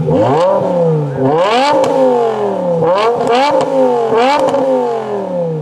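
A BMW E60 M5's V10 engine, breathing through an Eisenmann Race exhaust whose stock muffler has been cut off and clamped, being free-revved while parked. It is blipped about five times in quick succession, each rev rising sharply and falling back, and the last dropping away toward idle near the end.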